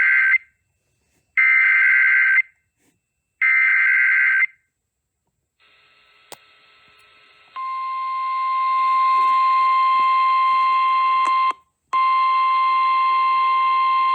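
Emergency Alert System header on NOAA Weather Radio: three one-second bursts of buzzy two-tone SAME data about a second apart, the first already under way. After a short pause, the steady 1050 Hz weather radio warning alarm tone comes in over radio hiss, dropping out briefly near the end. This signals that a warning is about to be read.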